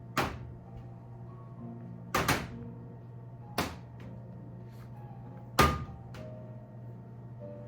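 Four sharp knocks of things being set down or handled on a hard surface, the second a quick double and the last the loudest, over soft background music.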